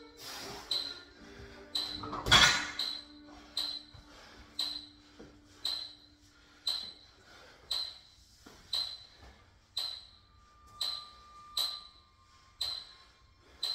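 Background music with a steady tick about once a second. About two seconds in, a single loud thud as the 90 lb plate-loaded landmine axle is set down on the floor.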